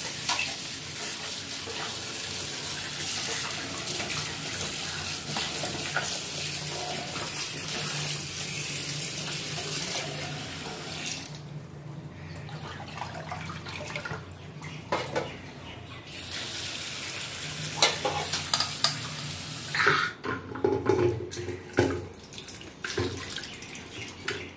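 Tap water running into a steel bowl in a steel sink while hands rub and swish raw jackfruit pieces to wash them. Near the end the flow gives way to scattered knocks and clinks of the steel bowl and pieces being handled.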